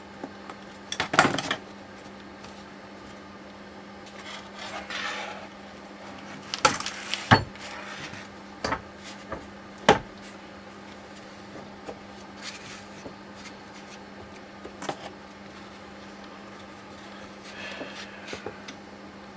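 Steering rack parts and tools being handled during disassembly: scattered clinks and knocks with short stretches of scraping and rubbing, over a steady low hum.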